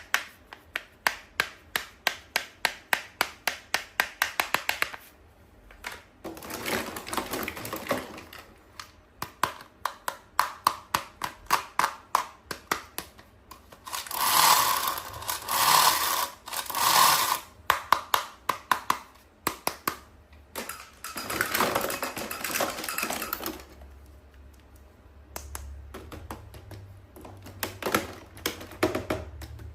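Toys and their packaging being handled: runs of quick sharp clicks, about four or five a second, broken by several bursts of plastic rustling, three of them loud and close together midway through.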